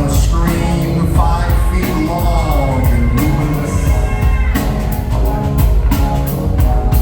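A live rock band playing with loud drums and bass, and a voice over the music.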